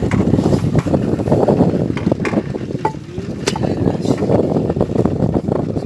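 Wind buffeting the microphone on an open fishing boat, a loud rough rumble, with a few sharp knocks on the deck and hull.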